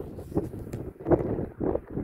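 Wind buffeting the microphone in irregular gusts, a low uneven rumble that swells and drops every fraction of a second.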